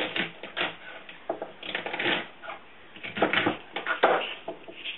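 Kitchen knife cutting through celery stalks onto a wooden cutting board: a string of short, uneven cutting strokes.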